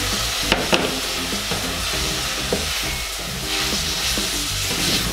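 Chicken broth sizzling and steaming as it hits a hot saucepan of browned onions and flour, while a wooden spoon stirs it. Two sharp knocks come about half a second in.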